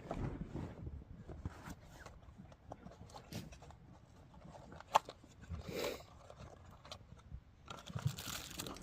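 Faint scrapes, rustles and clicks of parts being handled, with one sharp click about five seconds in and a short rustling burst just after.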